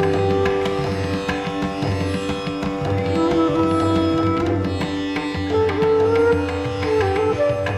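Indian classical instrumental music: sitar playing a melody over tabla.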